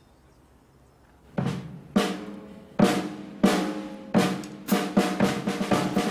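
Drums on a kit: after a short pause, single ringing drum strikes come about every half second to a second, then speed up into a fast roll.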